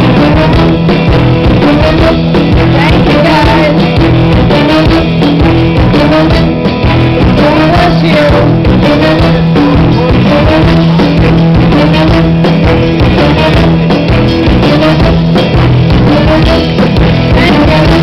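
Live rock band playing loudly, with electric guitar, bass and drums. A short melodic figure repeats about once a second.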